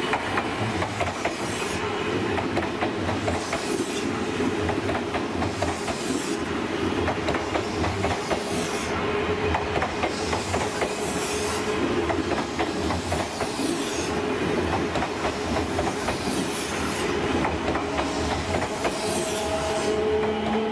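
Odakyu Line stainless-steel commuter electric multiple unit passing close by, its wheels clacking over the rail joints with a steady wheel squeal on the curve. A high hiss swells about every two seconds.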